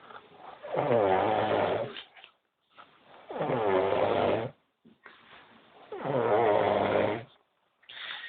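A sleeping man snoring: three long snores, each over a second, with a wavering pitch, coming about every two and a half seconds, with quiet breathing between.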